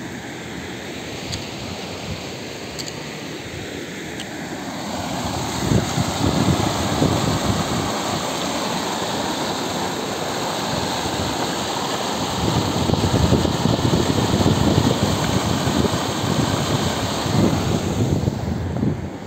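Stream water rushing through a concrete culvert and pouring out as white water, a steady rush that grows louder about five seconds in, with wind buffeting the microphone.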